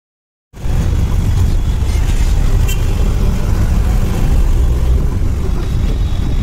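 Loud, steady road-traffic noise with a heavy low rumble, as heard from a moving vehicle. It starts abruptly about half a second in and cuts off just before the end.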